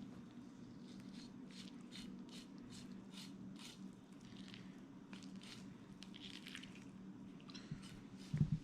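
Sharp knife trimming silver skin from a raw venison roast: a run of faint, quick slicing strokes, about two or three a second, over a steady low hum. A low knock comes near the end.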